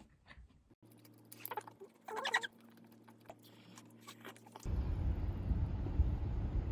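Two short, high squeaky calls over a faint steady electrical hum. After a sudden cut about two thirds of the way in, strong sea wind buffets the microphone with a loud low rumble.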